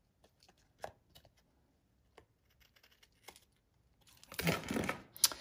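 Small craft scissors trimming the edge of a cardstock card: a few faint clicks as the card is handled, then about four seconds in a short rasping cut through the card that ends in a sharp click.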